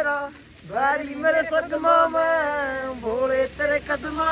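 A man singing a drawn-out, wavering melody, with a short break about half a second in.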